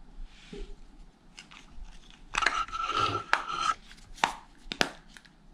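A plastic Wahoo Tickr heart-rate monitor pod being handled and pressed onto its rubber chest strap. There is about a second and a half of rubbing and scraping with a thin squeak in it, then a few sharp clicks.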